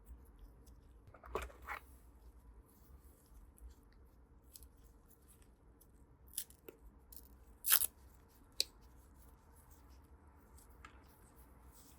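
Keyboard packaging being unboxed by hand: scattered soft crinkles and rustles with a few short, sharp snaps and clicks, the loudest a little past halfway through.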